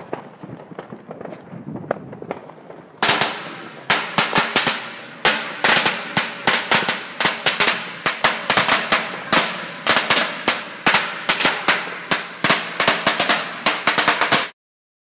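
A string of firecrackers going off: rapid, loud cracks begin about three seconds in and pop in dense clusters for around eleven seconds, then cut off suddenly near the end.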